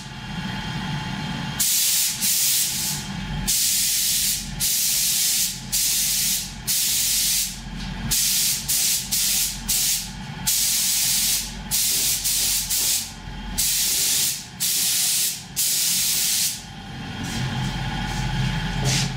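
Gravity-feed compressed-air spray gun hissing in short bursts, about one a second, the trigger pulled for each quick pass as it lays a thin first adhesion coat of paint on plastic car moldings. A steady low hum runs underneath.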